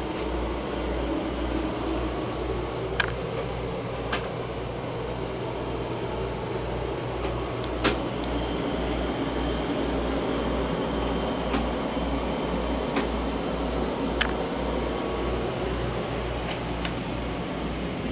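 Air-conditioning and ventilation running inside a vehicle cabin: a steady hum over a low throb that pulses about twice a second. A few short clicks, the sharpest about eight seconds in.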